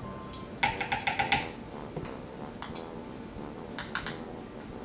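Small metal measuring spoons clinking and tapping while scooping baking soda and baking powder: a quick run of light clicks and ringing clinks about half a second in, a couple of single taps, and another short clatter near four seconds.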